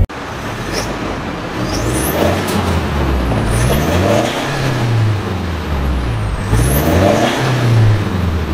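Mitsubishi Pajero Sport 2.4 four-cylinder turbo-diesel idling through a full aftermarket quiet-type performance exhaust, its engine note rising with three throttle blips and falling back to idle each time.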